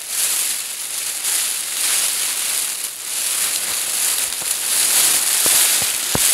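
Foil emergency space blanket crinkling and crackling as it is shifted and an arm pushes out from beneath it, with a few sharper crackles near the end.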